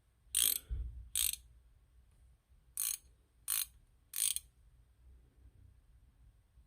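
Halfords Advanced ratchet spanner being worked back and forth, its ratchet clicking in five short bursts over the first four and a half seconds.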